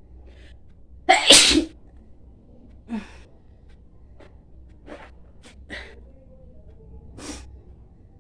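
A woman sneezes once, loudly, about a second in. Several short, much fainter breathy sounds follow over the next few seconds.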